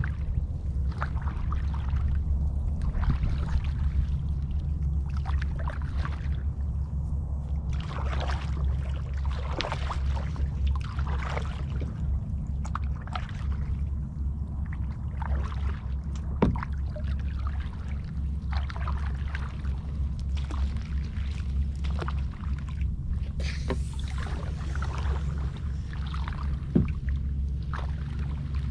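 A kayak being paddled through shallow, weed-choked water: paddle blades dipping and splashing, water dripping off them and the hull brushing through floating vegetation, over a steady low rumble. Two sharp knocks stand out, one about halfway through and one near the end.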